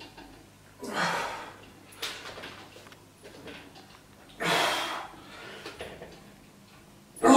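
A man breathing hard through effortful exhalations while doing bodyweight dips on a dip stand, with two strong breaths about three and a half seconds apart and fainter ones between. A sudden loud sound comes right at the very end.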